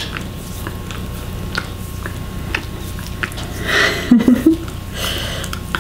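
A pet licking a person's hand, a steady run of short wet smacking clicks about two or three a second. About four seconds in, a brief, louder vocal murmur.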